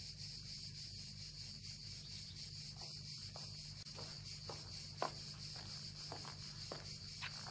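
Steady, high-pitched chirring of insects in a summer outdoor ambience, with a few light footsteps in the second half.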